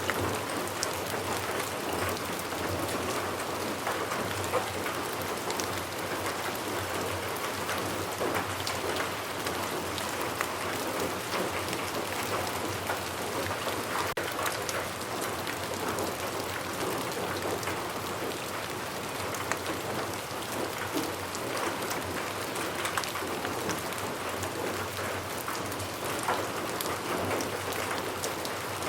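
Steady rain falling on a hard surface, with many individual drop ticks over an even hiss.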